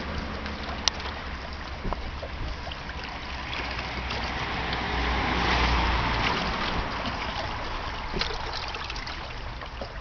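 Lakeside water and wind: small waves washing against shoreline rocks with wind on the microphone, over a low steady rumble that swells about halfway through, and a few light clicks.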